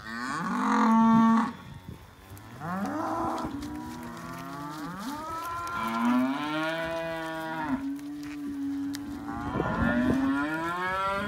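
Charolais heifers mooing: several long, overlapping calls that rise and fall in pitch, the loudest about a second in.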